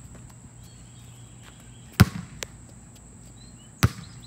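Soccer ball being kept up in the air, thumped sharply twice about two seconds apart.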